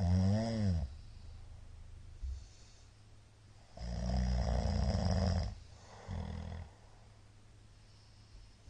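A middle-aged man snoring loudly in his sleep: a snore with a wavering, bending pitch at the start, then a long loud snore about four seconds in and a shorter one right after it.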